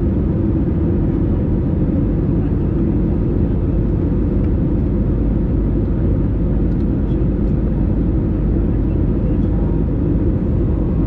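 Steady cabin noise of an easyJet Airbus A320-family jet in descent, heard inside the cabin over the wing: a constant deep rumble of the engines and the air rushing past the fuselage.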